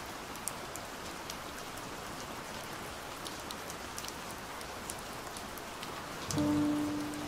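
Steady rain with scattered drop ticks. About six seconds in, slowed, muffled music comes back in with held low notes.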